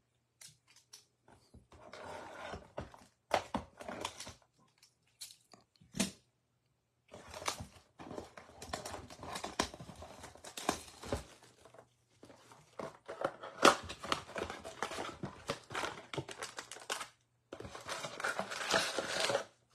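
A cardboard trading-card blaster box being torn open, then foil card packs crinkling and tearing as they are unwrapped. It comes in irregular crackly bursts with short pauses between them.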